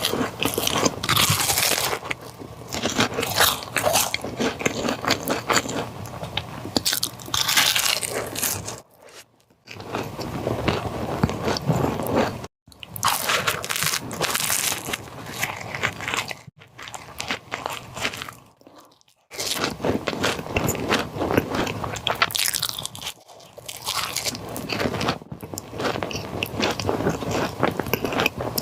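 Close-miked eating of chocolate caramel profiteroles: crunchy bites into the coated pastry and wet chewing, broken by a few short pauses.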